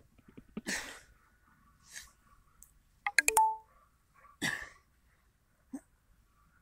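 Three short puffs of breath, in time with a boy's push-ups. About three seconds in, a few sharp clicks run into a short bright ding, the loudest sound.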